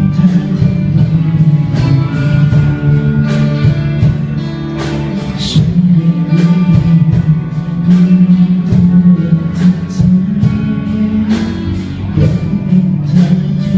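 A song played by a band, with guitar over a steady drum beat and some singing.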